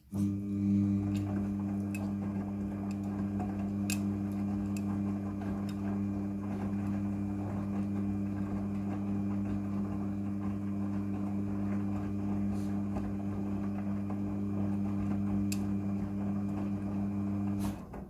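Midea front-loading washing machine's drum motor running as the drum turns the wet load of clothes: a steady hum with a few light clicks, starting abruptly and cutting off abruptly just before the end.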